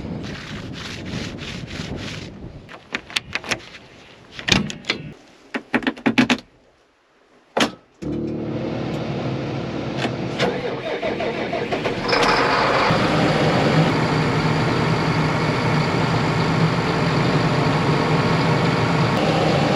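Several seconds of scattered clicks and knocks, then a vehicle engine starts about 8 seconds in and runs steadily. About four seconds later it steps up to a higher, louder speed and holds there.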